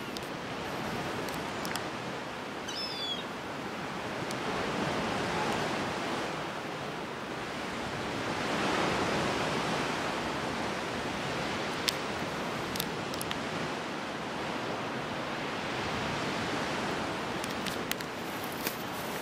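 Steady wash of sea surf below the cliffs, swelling twice in the first half, with a few faint ticks later on.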